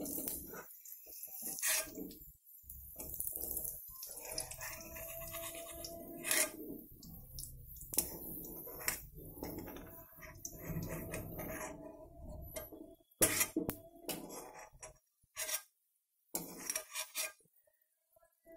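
Steel kitchen utensils and pans clinking and knocking on a gas stove, a scatter of sharp clicks with a few louder knocks in the second half.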